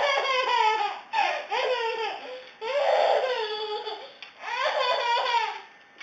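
Baby laughing out loud in four long, high-pitched bursts, each falling in pitch, with short breaths between.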